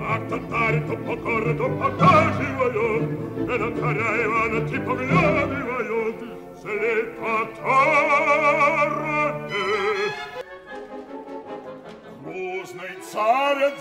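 Operatic singing with orchestra, a voice with strong vibrato over sustained accompaniment. The music thins out about ten seconds in, and a voice comes back in near the end.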